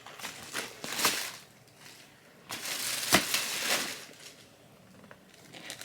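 Plastic packaging crinkling and rustling as it is handled, in two bouts, the second louder with a sharp snap about three seconds in.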